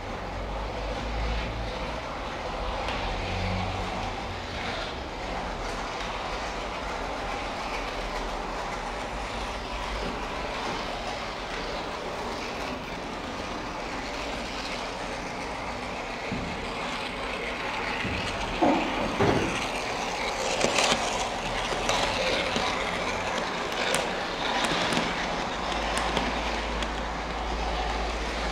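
Märklin model train running along its track, a steady rolling whir of motor and wheels, with sharper clicks and clacks in the second half as it comes closer.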